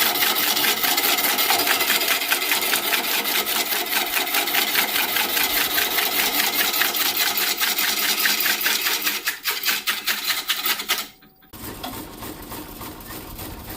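A power tool cutting or shaping wood with a rapid, even chatter, cutting off abruptly about eleven seconds in; a quieter, different background follows.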